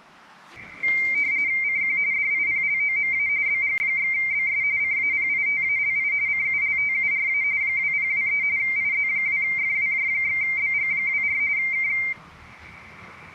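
A single high-pitched electronic tone from the amateur radio setup, with a slight warble, held steady for about eleven seconds and cutting off suddenly near the end.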